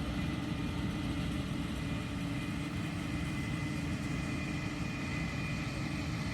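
A motor running steadily at an even pitch, with no change in speed.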